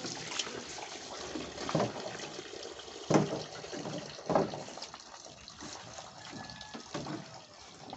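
Water from a garden hose running and splashing into the stainless steel drum of a chicken plucker, fading after about five seconds. A few sharp knocks sound over it, the loudest about three and four seconds in.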